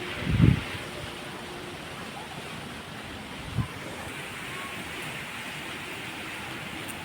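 Steady rain and wind noise. A loud low thump comes about half a second in, and a shorter one about three and a half seconds in.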